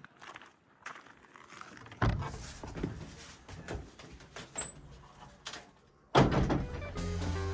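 Footsteps on a walk, with a door-like knock and bumping starting about two seconds in. Near the end, music with drums and guitar starts suddenly.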